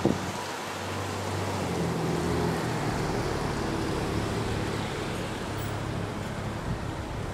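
A motor vehicle's engine hum that swells over a few seconds and then eases off, over a steady outdoor hiss; a short sharp click right at the start.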